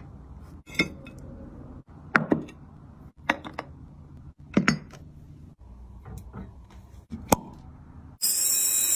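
Short clinks and knocks of ceramic plates and food being handled on a table, several separate strikes. Near the end, a steady high hiss for about a second and a half.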